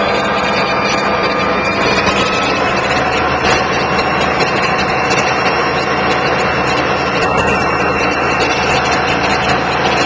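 Freight locomotive's diesel engine running steadily, its pitch rising slightly about two seconds in.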